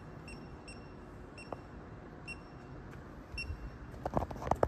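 Short high electronic beeps at irregular intervals, as when keypad buttons on a digital torque wrench are pressed to set the torque, here 120 N·m. From about three and a half seconds in, a quick run of sharp metallic clicks and knocks.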